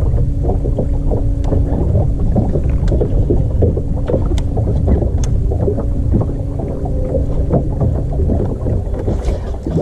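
Boat sound on the water: a steady hum from a bow-mounted electric trolling motor under a heavy low rumble of wind on the microphone and water against the hull, with scattered small clicks and knocks.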